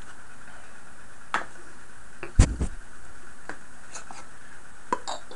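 Scattered clicks and knocks of objects being handled and set down on a tabletop, including a small wooden box. The loudest is a single thump about two and a half seconds in, with lighter taps before and after.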